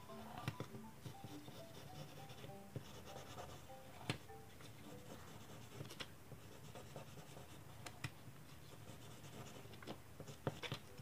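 Pencil drawing lines across a sheet of paper: soft scratching strokes with a few sharp ticks, over faint background music.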